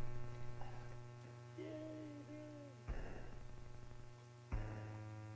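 Background music of held electronic keyboard chords over a low drone, switching abruptly to a new chord twice, with a short gliding melody line in between.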